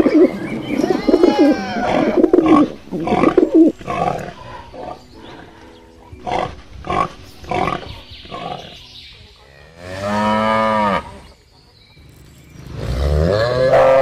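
Pigs grunting and squealing in quick succession for about the first four seconds, then a few short grunts. Two long cattle moos follow, one about ten seconds in and one near the end.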